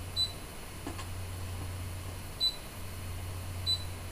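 Brother ScanNCut DX SDX1200 cutting machine's touchscreen giving three short, high beeps as its on-screen buttons are pressed, over a steady low hum.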